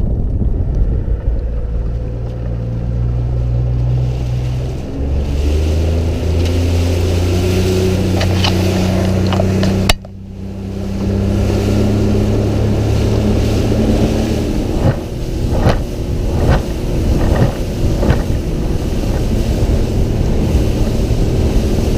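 A boat's outboard motor running under way, speeding up about four or five seconds in and then holding steady, with a few knocks part way through.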